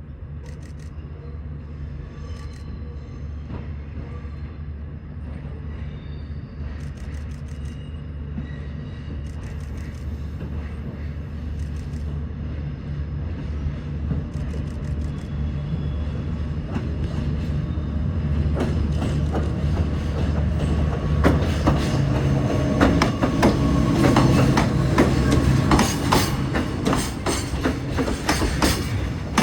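A diesel-hauled freight train approaching, its engine hum growing steadily louder. From about two-thirds of the way in, the wheels clatter over rail joints and points, with some wheel squeal.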